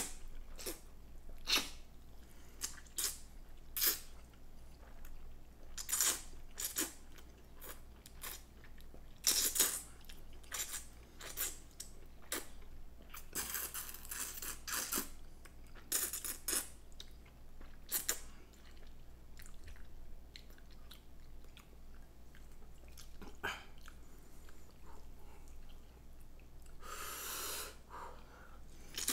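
Close-up mouth sounds of a person eating instant ramen noodles: irregular wet chewing and smacking, with two longer noisy stretches, likely slurps of noodles or broth, near the middle and near the end.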